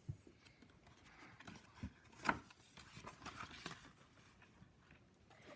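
Faint, scattered clicks and soft rustles of a picture book being handled, with a few sharper ticks around the middle.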